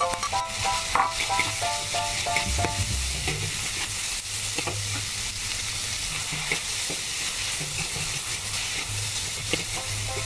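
Minced pork, dried tofu and preserved spinach sizzling in a hot wok while a metal spatula stirs and scrapes, with frequent sharp clicks of the spatula against the wok. Light background music plays during the first few seconds.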